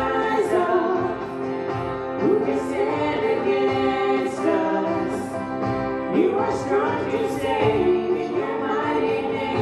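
Worship song: voices singing a slow melody over sustained band accompaniment.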